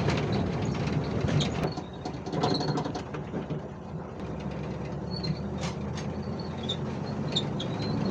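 Volkswagen Kombi van running on the road: a steady low engine hum with the body rattling and creaking, and short high chirps now and then.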